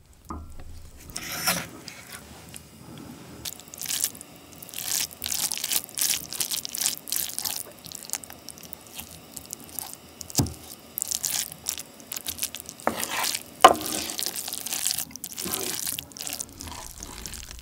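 Rice soaked in spicy ramen broth being mixed with canned tuna in a pot with a spoon: wet, sticky squishing and stirring, with the spoon scraping the pot. One sharp knock of the spoon on the pot about three-quarters of the way through.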